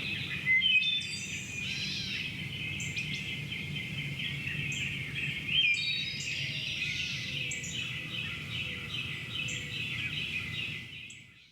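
Countryside morning ambience: several birds chirping and trilling over a steady low rumble, with a couple of louder calls about half a second in and again near six seconds. It fades out just before the end.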